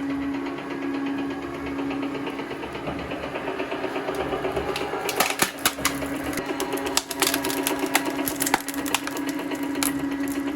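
Old electric motor driving a cone screw log splitter, running with a steady hum as the screw bores into a log. From about halfway through, the wood gives a string of sharp cracks and snaps as it splits.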